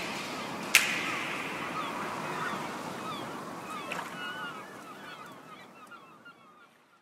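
Chill tropical house background music fading out to silence. There is a last sharp percussion hit about a second in, and short chirping sounds over the fade.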